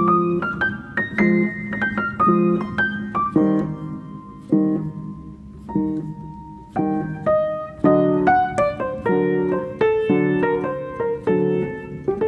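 Instrumental background music: a piano playing a melody of single struck notes, each ringing and fading.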